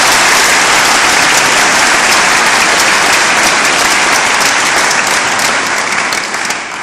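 Audience applauding, a dense, loud clapping that dies down near the end.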